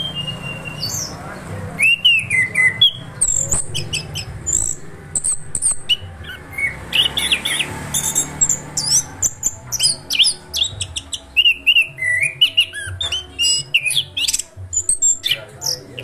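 Caged thrush singing a fast, varied song of whistled notes, chirps and trills that runs on with hardly a break.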